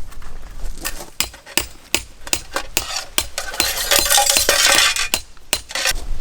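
Metal camping gear clinking and scraping as parts are worked into place: a run of sharp, irregular clinks, with a longer scraping rub around the middle.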